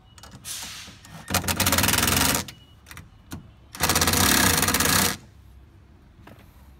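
Cordless impact driver hammering the towing mirror's mounting nuts tight. It gives a short, softer run near the start, then two loud rattling bursts of about a second each.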